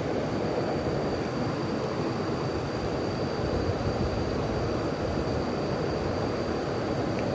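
Steady rushing of a swift-flowing stream, a constant even noise without breaks.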